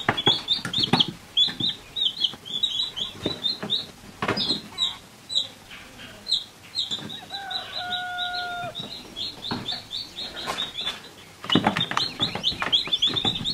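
Newly hatched chicks peeping, many short high peeps in quick succession, thinning out for a moment just before the last couple of seconds. A brief steady low tone sounds about halfway through.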